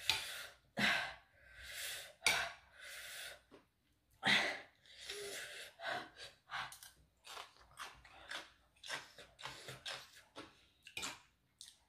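A person's sharp breaths, hissed in and out through the mouth over and over, with small mouth clicks between: a reaction to the burn of very spicy food.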